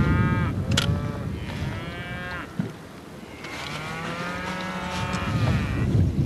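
Cattle mooing: four drawn-out calls, the longest starting about three and a half seconds in and lasting about two seconds, over low wind noise.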